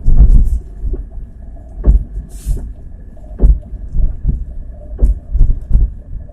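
Chevrolet Niva driven in third gear, heard inside the cabin: a steady engine hum with a string of short, dull driveline thumps at uneven intervals, the heaviest right at the start. These are the transmission knocks that come as the clutch is pressed and released, which the owner suspects come from the front differential, or possibly the gearbox.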